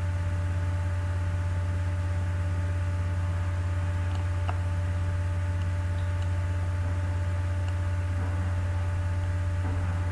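Steady low electrical mains hum with fainter higher tones above it, and a faint click about four and a half seconds in.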